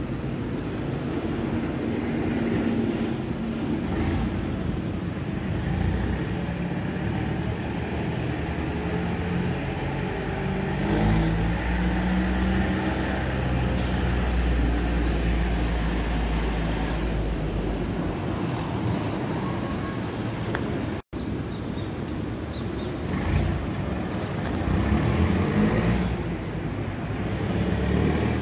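City street traffic: cars running past, with a heavier low engine rumble through the middle of the stretch. The sound drops out for an instant about two-thirds of the way in.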